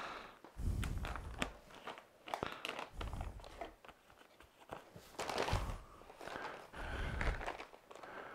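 Paper rustling and crinkling as a shop-vac filter bag and its paper instruction sheets are handled and unfolded, with crisp ticks and crackles throughout. About four dull low thumps are mixed in.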